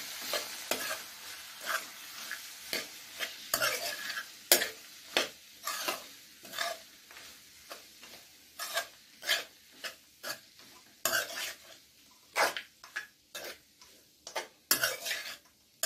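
Spoon scraping and tapping against a kadhai as poha is stirred and mixed, in short strokes about one or two a second. A faint sizzle underneath dies away over the first half.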